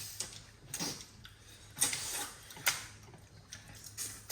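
Tableware clinking and clicking as people eat from bowls at a table: scattered light clicks with a few sharper knocks, about one, two and nearly three seconds in, over faint slurping hiss.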